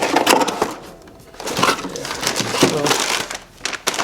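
Plastic packaging crinkling and crackling as it is handled and unwrapped, in two spells with a short lull about a second in.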